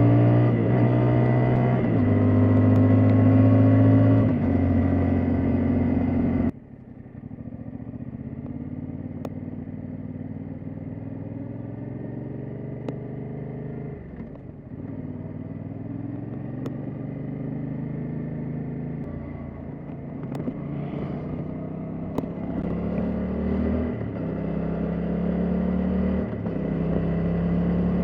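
Yamaha Tracer 700's parallel-twin engine pulling through the gears, its note climbing and then dropping with each upshift. It is loud for the first six seconds or so, then abruptly much quieter, with further climbing shifts near the end.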